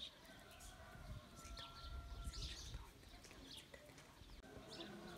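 Faint bird chirping: short, high calls at irregular intervals over a quiet background.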